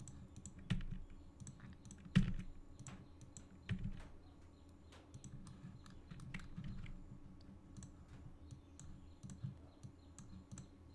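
Computer mouse clicks and keyboard key presses, irregular and scattered, with a few louder clicks in the first four seconds.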